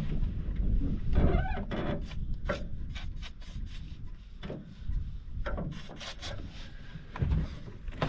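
Outboard motor's steering swivel rubbing and creaking as it is swung back and forth while Inox lubricant is worked in to cure its squeak, with scattered knocks and clicks of handling.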